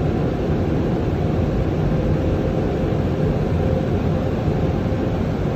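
Automatic car wash tunnel running around the vehicle, heard from inside the cabin: a steady rushing roar of water and cloth washing over the windshield, with a low rumble and a faint steady hum.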